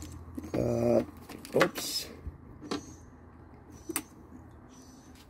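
A short wordless voice sound, then a few scattered clicks and rustles of hands handling wiring or a tool, over a low steady hum.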